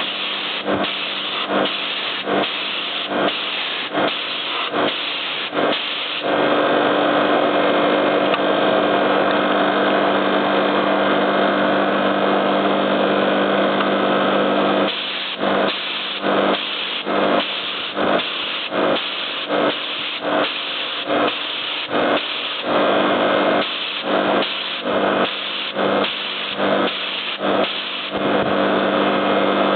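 DIY air compressor built from two three-phase air-conditioner compressors, running with a steady hum. Over the hum, louder noise comes in even bursts about one and a half times a second, and for two long stretches, from about six to fifteen seconds in and again near the end, it runs on without a break.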